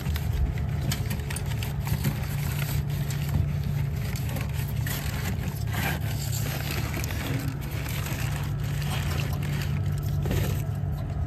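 A steady low mechanical drone from machinery running, with occasional light clicks and scrapes of parts and wires being handled.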